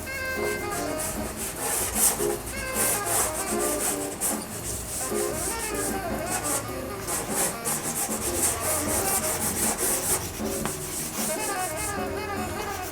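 Dry pastel being stroked and rubbed across textured pastel paper in quick repeated scratchy strokes, which stop near the end. Background music with brass plays underneath.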